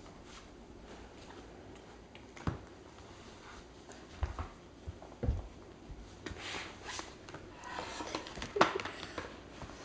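Children moving about on a hardwood floor: a few scattered thumps and knocks, then rustling and scraping as a board book is handled, with the loudest knock near the end.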